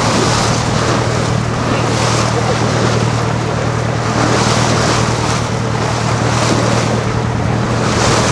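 Tour boat's engine running steadily as a low hum, under rushing wind on the microphone and water washing past the hull.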